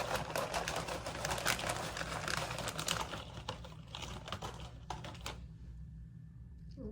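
Handling of a crouton bag: quick crackling, rustling and clicking, dying away about five seconds in.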